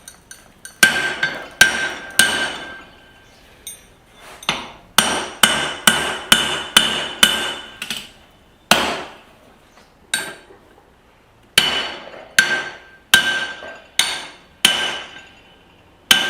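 Hand hammer blows on steel at the anvil, each with a short metallic ring. The strokes come in uneven runs of quick blows, about two or three a second, with short pauses between the runs.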